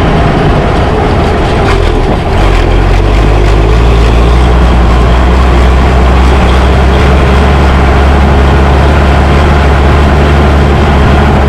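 Fiatagri 90-series tractor's six-cylinder turbo diesel running under load while driving on the road, a steady low engine note. A brief dip in level about two seconds in, after which the engine pulls steadily again.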